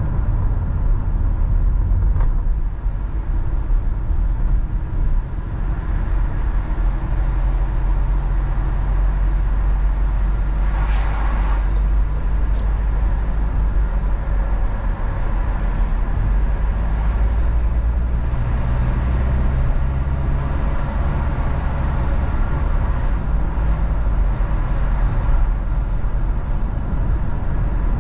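A car driving in traffic: a steady low rumble of engine and road noise, with the engine tone shifting a few times as the speed changes. There is a brief hiss about eleven seconds in.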